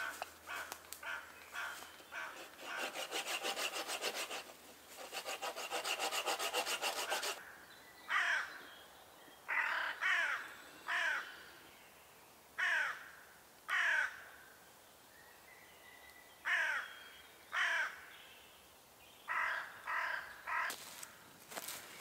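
Rasping strokes of a saw through wood for the first seven seconds or so, in two main bouts. Then a crow caws repeatedly: short, harsh, falling calls, some in pairs, with a quicker run of them near the end.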